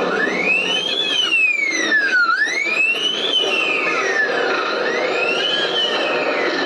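A recorded wailing siren, air-raid style, played as a sound effect for a war diorama's light-and-sound show. Its pitch rises and falls slowly three times, over a steady background hum.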